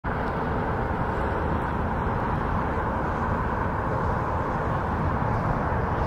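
Steady rushing noise with no distinct events or tones, constant in level throughout.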